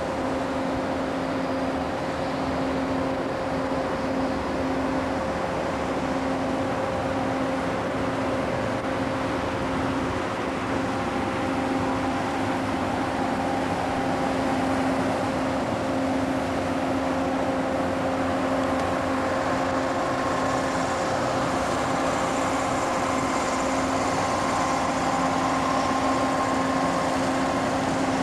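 A steady mechanical hum with a constant low tone over a noisy rush, unchanging throughout.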